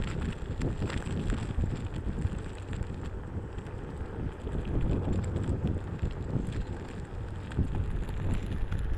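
Wind buffeting the microphone during a Onewheel ride: a gusting low rumble that rises and falls.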